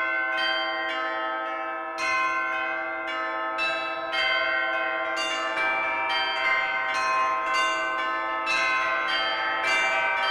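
Church bells ringing a celebratory peal. They are struck in quick succession, two or three strikes a second, and each tone rings on under the next.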